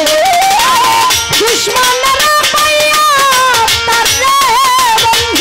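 A woman singing a Bengali baul folk song into a microphone, her voice gliding and ornamented, over live band accompaniment with a steady percussion beat.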